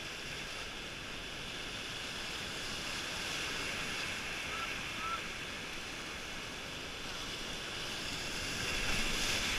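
Whitewater rapids rushing around the bow of an inflatable raft as it runs through them, a steady rush of water that grows louder near the end.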